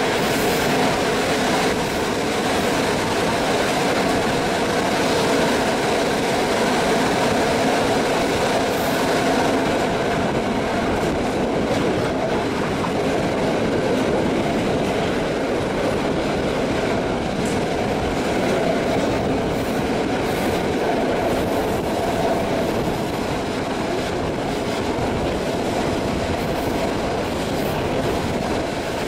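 A TLK passenger train running along the line, heard from an open carriage window: the steady rumble of wheels on the rails with some clickety-clack.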